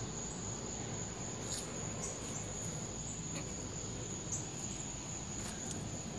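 Crickets trilling steadily in one even high-pitched note, over the low rustle of someone walking through brush.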